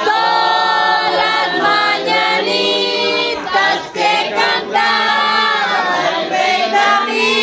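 Several voices singing a song together, with long held notes.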